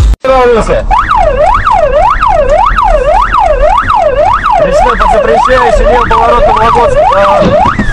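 Emergency-vehicle siren in a fast wail, sweeping up and down about twice a second. Near the end it climbs high and starts a long falling glide.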